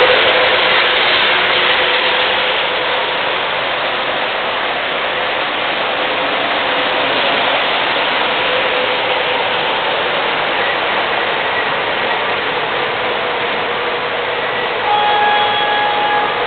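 MTH O-gauge model subway trains running on three-rail track: a steady dense clatter of wheels and motors. Near the end a brief, louder steady tone sounds over it.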